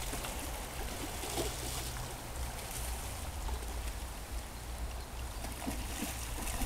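Shallow creek water running over a gravel bar, a steady rushing hiss, over a low steady rumble.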